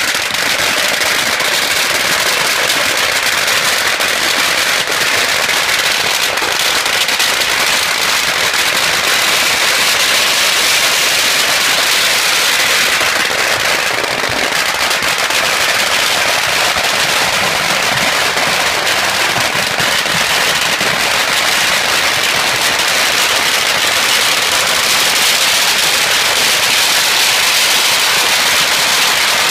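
Strings of red firecrackers going off continuously, a dense, unbroken rapid crackle of small bangs.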